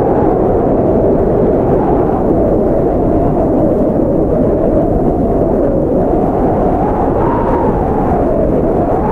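Blizzard wind blowing hard and steadily, a deep rushing with a howling tone that slowly rises and falls in pitch.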